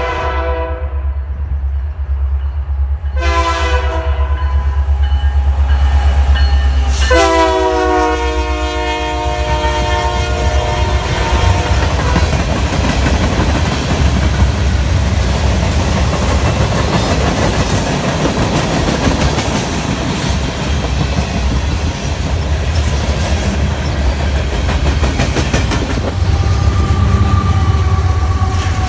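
Canadian Pacific SD70ACU freight locomotive sounding its horn as it approaches: a blast ending about a second in, a short one a few seconds later, then a long blast of about four seconds. The engine and a long freight train of covered hoppers and tank cars then pass close by with a loud, steady rumble and wheel clatter; near the end a steady whine and heavier rumble come in over the noise.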